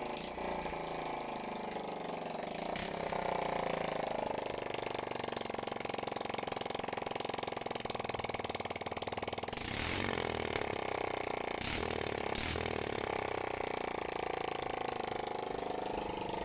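Freshly rebuilt Yamaha Fazer 125 single-cylinder four-stroke engine running steadily with no silencer fitted, just after being kick-started. A few brief clicks come about ten and twelve seconds in.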